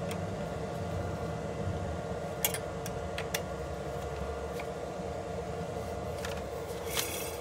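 A handful of light, scattered clicks as an Allen key snugs down the scooter's brake caliper mounting screws, over a steady background hum.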